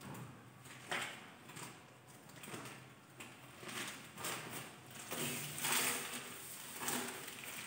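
Cleaning cloth wiping and rubbing over a flat-screen TV and its glass stand, in irregular strokes of a second or less.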